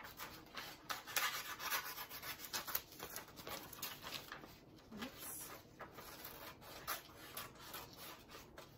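Scissors cutting through a sheet of paper: a run of short, uneven snips mixed with the rustle of the paper as it is turned.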